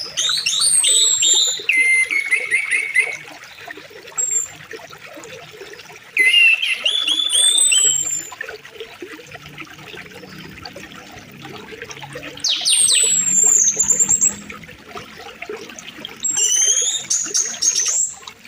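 Stream water running steadily, with songbirds singing over it in four spells of falling whistled notes and quick repeated chirps; the birdsong is the loudest sound.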